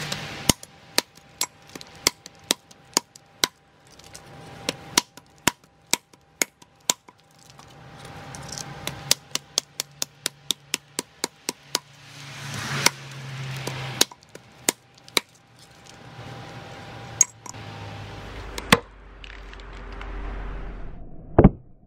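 A hand tool striking hard, about two to three sharp blows a second, then a quicker run of blows around ten seconds in and a few scattered ones after.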